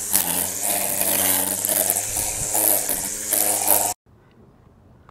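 Electric string trimmer with its motor at the cutting head, running steadily as its line whips through weeds and grass. The sound cuts off abruptly about four seconds in.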